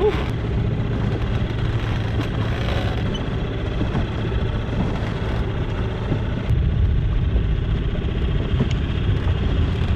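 Small four-stroke outboard motor running steadily, mixed with wind rush and water splashing against the hull.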